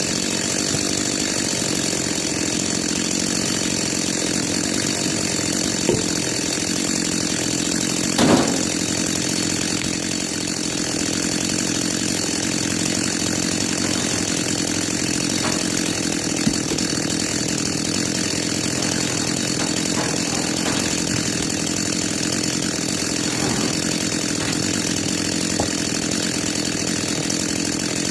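Gas chainsaw running steadily at high speed, cutting up the wood of a storm-felled tree. A few short sharp knocks cut through it, the loudest about eight seconds in.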